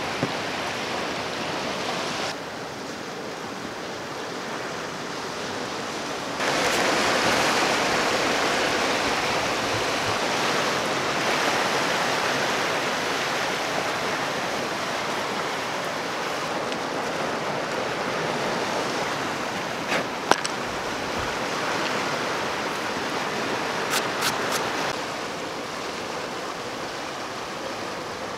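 Sea surf washing over a rocky shore: a steady rush that steps louder about six seconds in and drops back near the end. A few light sharp knocks come in the second half.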